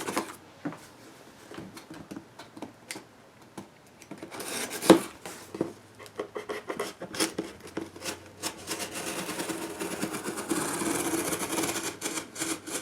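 A utility knife with a fresh blade cutting through a cardboard box and its packing tape: scattered scratches and small knocks, one sharp knock about five seconds in, then a longer run of steady scratchy slicing near the end.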